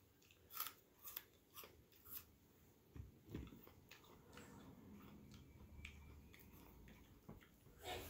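Chewing a mouthful of crisp raw apple: four sharp crunches about half a second apart, followed by a couple of soft knocks.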